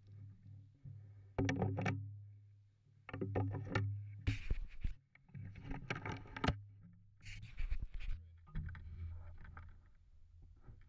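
Handling noise on a shotgun-mounted action camera: several short bursts of rustling and scraping over a steady low hum, loudest about four to six seconds in. No gunshot.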